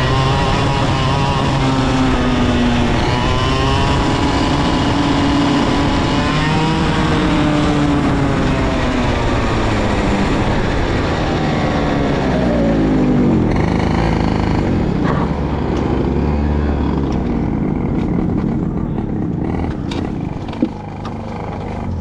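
IAME KA100 100cc two-stroke kart engine revving up and down as the kart is driven, then falling in pitch a little over halfway through as the kart slows. It runs lower and quieter toward the end.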